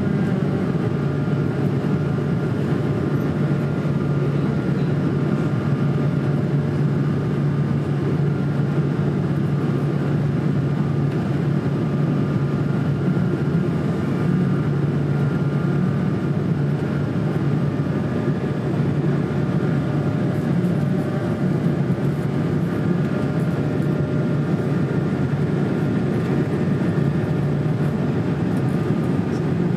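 Cabin noise of an Airbus A220 climbing after takeoff: a steady drone of its Pratt & Whitney PW1500G geared turbofan engines and the rushing airflow, heard from a window seat over the wing. A low hum and a few faint steady tones sit within it.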